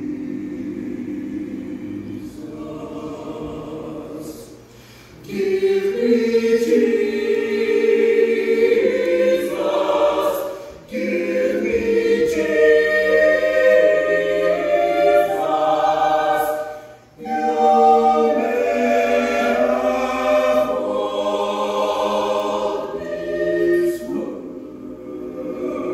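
Mixed-voice a cappella choir singing unaccompanied in parts. It is soft at first, swells much louder about five seconds in, and breaks off briefly between phrases twice before easing off near the end.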